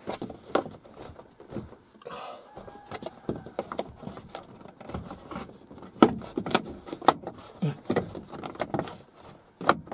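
Plastic interior trim of a 10-series Toyota Alphard's sliding door being pried and tugged by hand: a run of irregular clicks, knocks and rustling as the panel and its clips are worked at without coming free. The loudest knocks come about six seconds in and just before the end.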